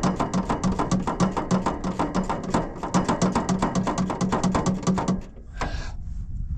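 Background music with a fast, steady beat and a repeating low note, cutting off about five seconds in.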